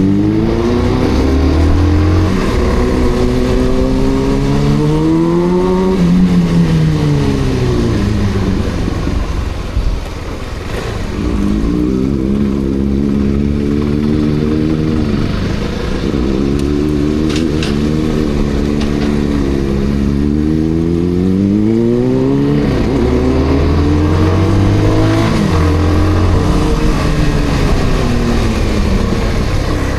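Kawasaki ZX-6R's inline-four engine revving under way, its pitch climbing and falling back several times as the throttle is opened and closed.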